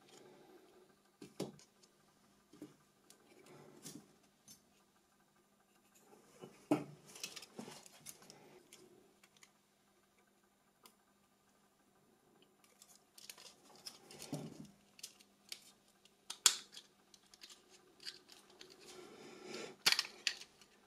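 Sparse small clicks and taps of a Nokia 6300 mobile phone's parts being handled and taken apart, with quiet gaps between them and a short rustle near the end.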